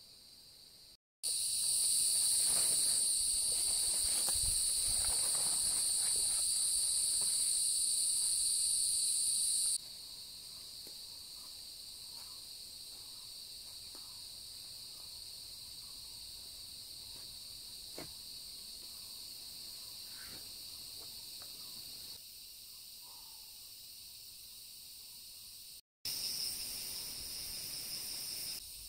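Rainforest insect chorus: a steady, high-pitched drone of many insects in two bands. It steps abruptly louder or quieter several times as the shots change, dropping about a third of the way in and coming back louder near the end.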